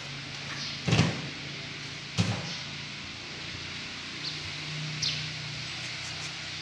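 Two short dull knocks about a second apart, over a steady low hum and hiss.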